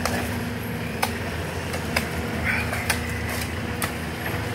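Hand tools (a shovel and a digging bar or pick) striking and scraping into broken concrete and gravel at a curb edge, with a sharp hit about once a second, over the steady hum of an engine idling.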